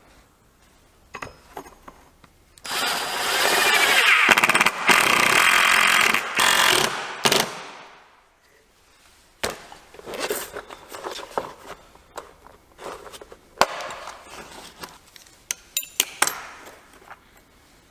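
Cordless drill running in several bursts for about five seconds, driving the screws that fasten a Lansky sharpener's metal mounting base to a wooden workbench. After it, a run of scattered clicks and knocks as small metal and plastic sharpener parts are handled on the bench.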